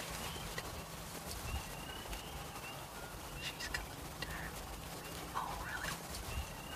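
Faint bird calls: short chirps, with a brief cluster of lower calls about five seconds in, over a low steady rumble.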